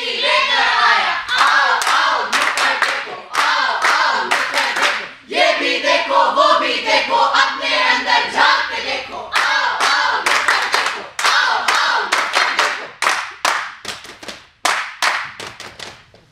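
A group of voices singing together over rhythmic hand clapping. In the last few seconds the singing fades and the claps carry on alone.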